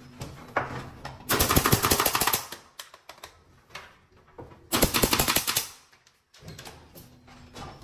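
Two bursts of rapid mechanical clatter, a fast run of sharp clicks lasting about a second each, one about a second in and the other about five seconds in.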